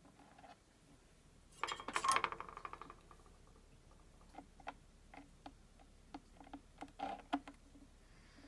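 A metallic clatter about two seconds in, as the soldering iron is taken up from its coil stand. Then a string of light, separate clicks and taps while the iron's tip presses a brass heat-set insert down into the 3D-printed plastic.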